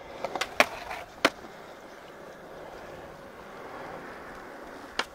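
Skateboard on smooth concrete: a few sharp clacks of the board in the first second or so, then the steady roll of the wheels on the concrete, and more clacks near the end.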